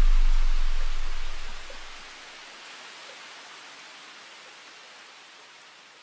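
Background music with a heavy bass line fading out over the first two seconds, leaving a steady hiss that slowly dies away.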